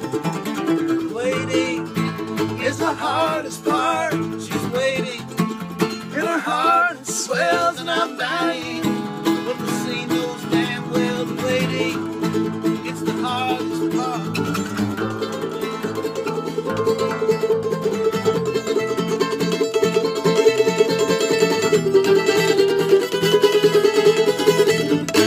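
Acoustic bluegrass played on mandolin and acoustic guitar, with singing over roughly the first nine seconds. After that the instruments carry on alone with fast, even picking that grows louder toward the end.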